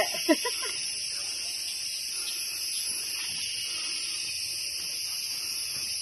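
Steady high-pitched drone of rainforest insects, unbroken throughout, with a brief voice at the very start.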